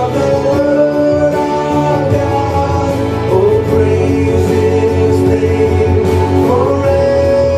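Christian worship song playing, with guitar and long held notes and some singing.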